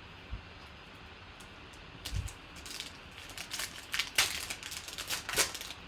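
Trading card packs and cards being handled: irregular crinkling and rustling of pack wrappers and cards, starting about two seconds in after a soft thump.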